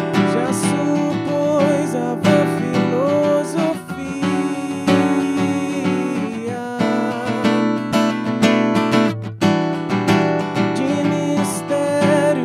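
Steel-string acoustic guitar strummed in a steady rhythm, with a man's voice singing over it in held, wavering notes.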